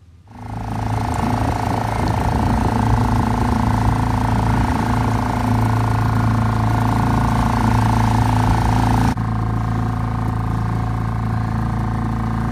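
Dinghy's outboard motor running steadily under way, a steady hum with a rush of wind and water over it. It drops slightly in level about nine seconds in.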